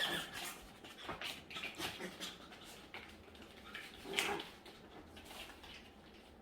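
Maltese puppy making short whimpering vocalisations, loudest at the start and again about four seconds in, among scattered light clicking taps.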